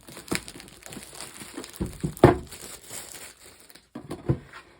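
Packaging in an opened card-game box crinkling and rustling as it is handled, with irregular clicks and a louder knock about two seconds in.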